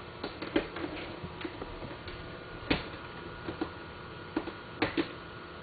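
Irregular light clicks and taps, about ten of them, with a sharper one about halfway through, over a faint steady room hum.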